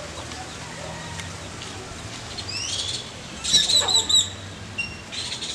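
Small songbird calling: a few rising whistled notes about two and a half seconds in, then a louder run of quick looping chirps about a second later.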